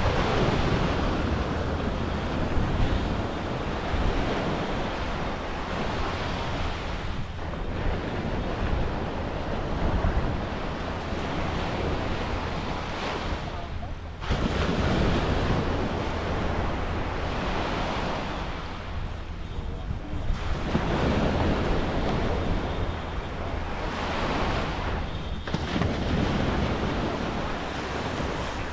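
Surf breaking and washing up the beach, swelling and easing every few seconds, with wind rumbling on the microphone.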